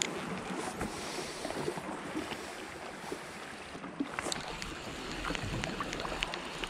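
Sea water lapping against the rocky shore, with wind on the microphone. A few light ticks come in the second half as the spinning reel is handled.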